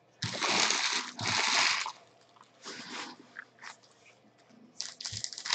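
Rustling and crinkling as trading cards and torn pack wrappers are handled and sorted by hand: two long rustles in the first two seconds, a few short ones in the middle, then more from about five seconds in.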